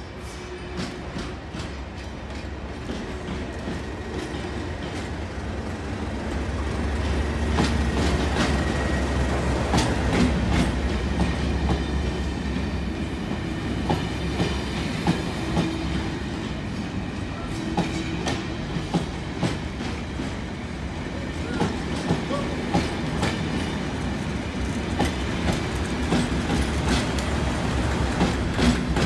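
Colas Rail Class 37 diesel locomotives passing with a test train: the English Electric V12 engine's low rumble builds as the leading loco draws near and passes. A run of sharp wheel clicks over rail joints follows as the test coaches go by, and the sound swells again near the end as the rear Class 37 passes.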